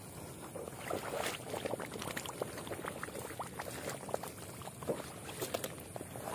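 Footsteps squelching through wet mud, with grass stems crackling underfoot in irregular squishes and snaps.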